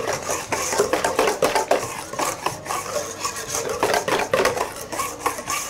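Wire balloon whisk beating a thin mixture of egg yolks, sugar and milk in a stainless steel bowl: fast, uneven rattling and clinking of the wires against the metal sides.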